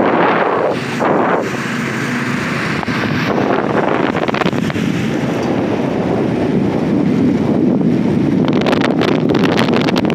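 Wind buffeting the microphone during a fast ride on a Jetson Bolt Pro: a steady rush with stronger gusts at the start, about a second in, and again near the end.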